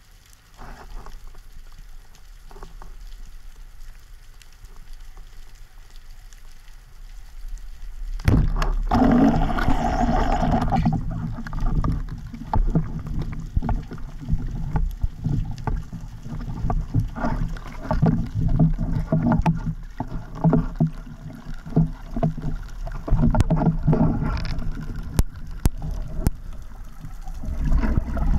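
Underwater camera sound of a spearfisher swimming up to the surface: water rushing against the camera housing, with irregular knocks and clicks from handling the speargun. It is fairly quiet at first, then turns suddenly loud about eight seconds in, with a hissing stretch just after.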